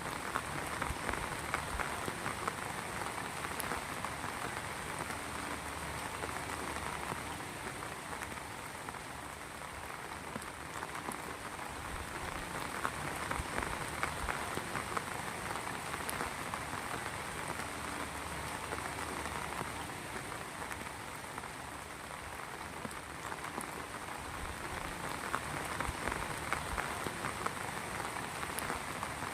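Heavy rain falling steadily, a dense patter of countless drops hitting a surface, swelling and easing slightly in intensity.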